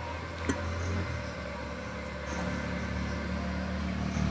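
A steady low mechanical hum that grows a little louder about two seconds in, with one light click about half a second in.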